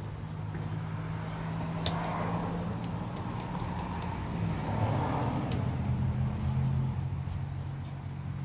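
Road traffic: a steady low engine hum with passing cars swelling up about two seconds in and again around five seconds. A few sharp, isolated taps sound over it.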